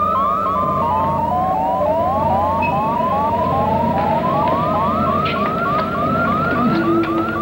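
Cybermat electronic sound effect: a stream of short, rising electronic chirps, about three a second and overlapping, over a steady low electronic hum.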